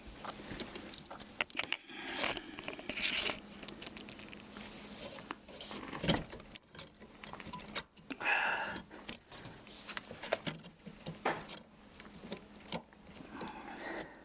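Scattered light metallic clinks, taps and scraping as hands work at the base of a dishwasher, turning its levelling foot up, with a sharper knock about six seconds in.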